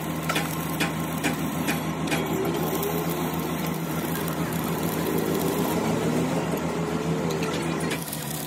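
Stick (arc) welding on the steel of an excavator bucket: the electrode arc crackles and sizzles steadily, over a steady low hum, with a few sharp clicks in the first couple of seconds.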